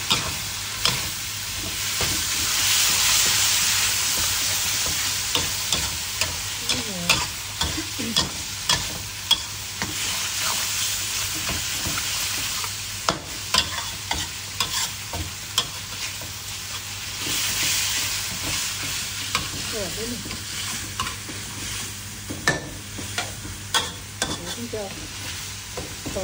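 Pork belly, egg and chilli sizzling in oil in a wok while a metal spatula scrapes and clinks against the pan, tossing the stir-fry to mix in the seasoning. The sizzle swells a couple of seconds in and again past the middle, with frequent sharp clicks of the spatula on the metal.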